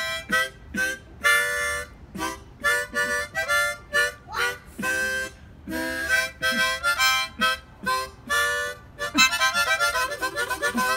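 Harmonica played in a string of short notes and chords, breaking into a fast trill near the end.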